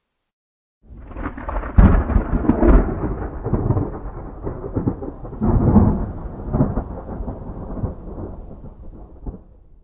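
Thunder: a clap about a second in with two sharp cracks, then a rolling rumble that swells again around the middle and dies away near the end.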